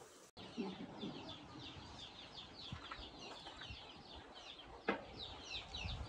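Chickens clucking, with many short, high, falling chirps throughout. A single sharp knock sounds about five seconds in.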